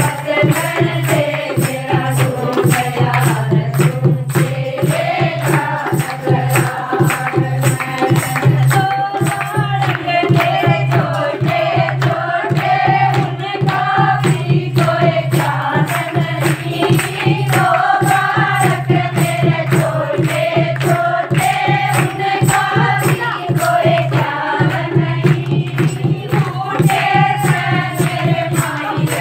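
A group of women singing a Hindi devotional bhajan to Shiva together, with a steady beat of hand clapping running under the voices.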